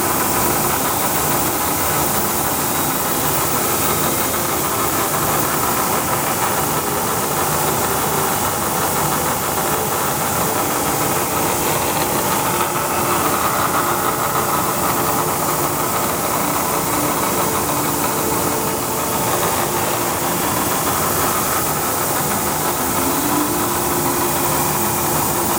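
Bridgeport Series I CNC vertical milling machine running, a steady mechanical hum with a few constant tones in it.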